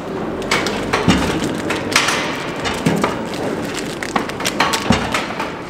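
Knocks and thuds from a cow shifting its weight against a metal cattle chute: scattered sharp knocks, with three heavier low thuds about two seconds apart.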